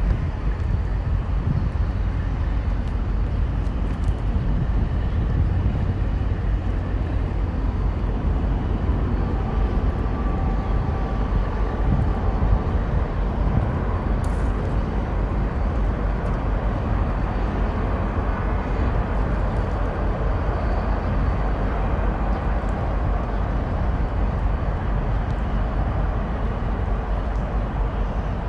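Steady low rumble of nearby road traffic, even throughout, with a faint engine-like tone about ten seconds in.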